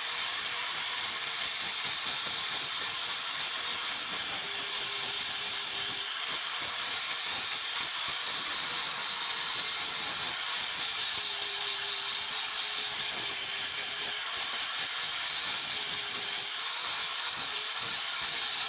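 Electric angle grinder with a sanding disc running steadily while it sands down a wooden handle. Its motor whine drops in pitch several times as the disc is pressed into the wood.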